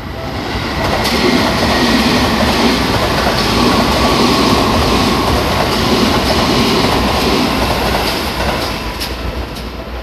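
Electric commuter train of the Seibu Shinjuku Line passing close by over a level crossing: wheel and rail noise builds over the first second, holds steady as the cars go by, and fades near the end.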